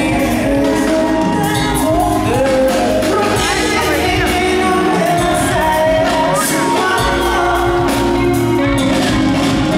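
Live bachata band with guitars and drums playing, with a male lead vocal singing over it through the PA, recorded from within the audience in a large hall.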